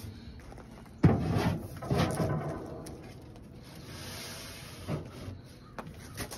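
Metal sheet pans clanking and scraping on the rack rails of a stainless steel cabinet smoker as a tray is pulled out. There is a sharp clank about a second in and another a second later, then a scraping slide and a couple of lighter knocks near the end.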